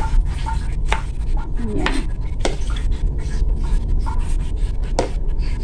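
Kitchen knife chopping fresh mushrooms on a plastic cutting board: a run of quick, irregular knife taps against the board, over a steady low background hum.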